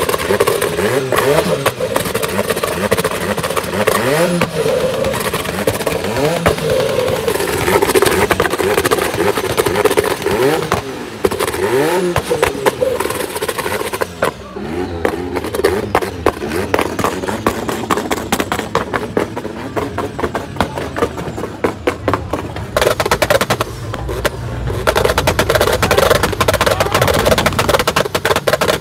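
Vehicle engines revving in repeated short rises and falls. About halfway through, loud music with a fast, steady beat takes over.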